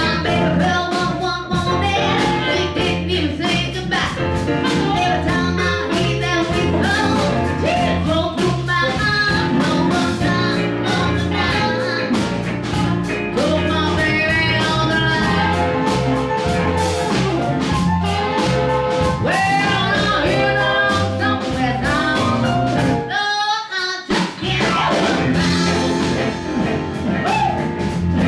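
Live electric blues band: a woman singing over electric guitar, bass and drum kit, with blues harmonica played through a handheld mic. The whole band stops for a moment about 23 seconds in, then comes back in.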